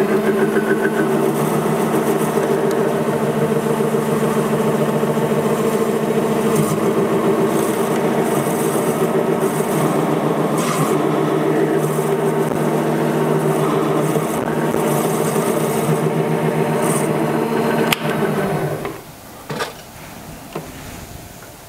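Mini lathe running steadily, its motor and drive giving a steady whine, while a pointed carbide tool widens the V-groove in a turned brass pulley. Near the end the lathe is switched off with a click and spins down to a stop.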